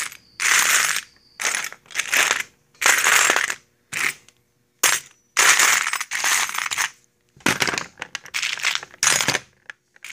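Small metal sewing machine presser feet and attachments clinking and jingling against each other as a hand rummages through a box of them, in short bursts one after another.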